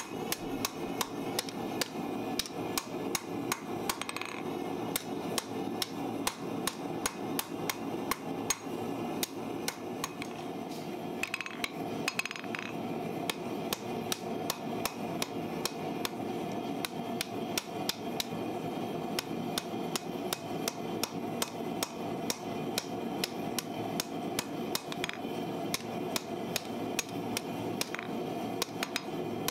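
Ball-peen hammer striking a red-hot steel farrier's rasp on an anvil in a steady run of blows, about two to three a second, forging the hot steel.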